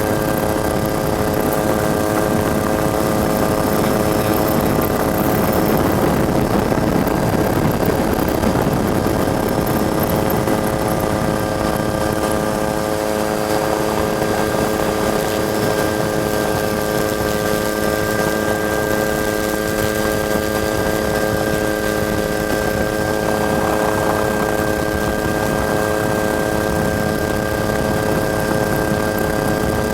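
Camera helicopter running steadily, heard on board: a constant engine and rotor drone with several held whining tones that do not change in pitch.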